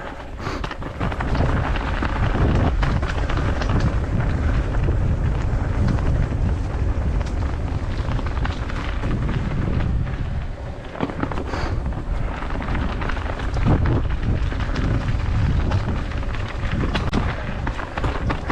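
Wind buffeting the microphone while a mountain bike rattles and knocks over a rough downhill trail, loud and continuous with frequent sharp knocks.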